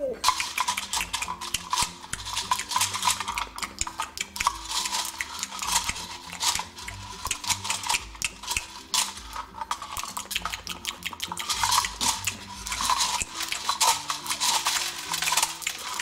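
Plastic toy bird's beak rummaging and pecking in a plastic bowl of dry cereal rings: a dense, continuous rattle of small clicks as the rings knock against each other, the beak and the bowl.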